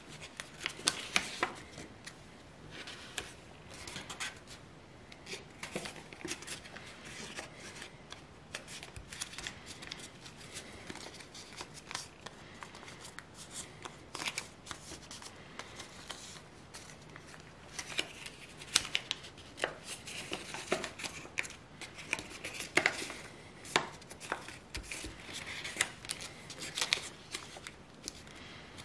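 A square sheet of paper being folded by hand into an origami crane: irregular crisp rustles and crackles as the flaps are lifted, folded and the creases pressed flat.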